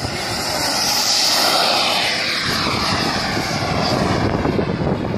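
Miniature turbine engine of a radio-controlled model airplane during its takeoff run and climb-out: a loud hissing whine that slides down in pitch as the plane passes by.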